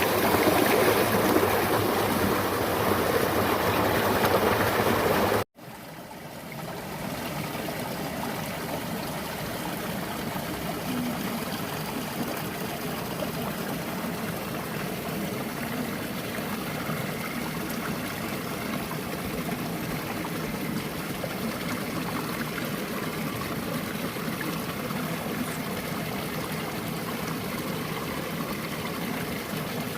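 Flowing water, a steady trickling, splashing hiss. It is louder for the first five seconds, cuts out abruptly, then carries on slightly quieter and steady.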